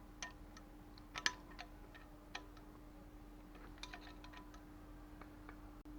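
Faint, irregular metallic clicks and taps of a spanner working on a bicycle's nuts and bolts as they are loosened, with a few louder clicks about a second in and a small cluster near the end, over a steady low hum.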